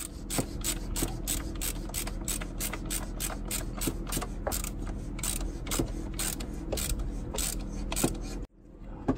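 Ratchet wrench clicking steadily, about three clicks a second, as it tightens the oil filter housing cap back onto the engine. The clicks stop abruptly near the end.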